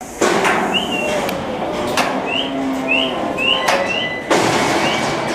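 Cattle saleyard ambience: a steady background din with a few loud knocks, and a short rising chirp repeated about seven times.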